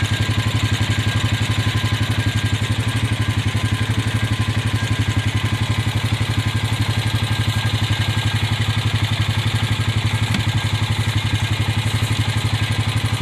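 An engine idling steadily, with an even, rapid low pulse that holds the same pace throughout.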